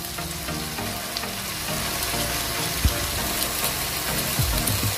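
Chicken pieces simmering and sizzling in their own released juices in a nonstick frying pan: a steady soft hiss, with two dull knocks in the second half.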